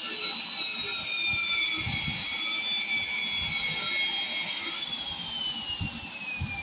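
Angle grinder with a wire wheel brush whining at high speed as it scrubs rust off a steel pipe, with a few low knocks of the brush against the metal. About five seconds in, its pitch starts to fall steadily as the grinder winds down.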